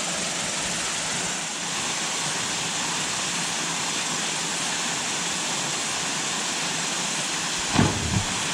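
Waterfall rushing: a steady, even rush of falling water, with two short low thumps near the end.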